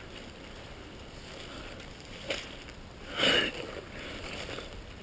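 Footsteps squelching through mud and water. There is a sharp click a little past two seconds, then a louder wet squelch or splash just over three seconds in, lasting about half a second.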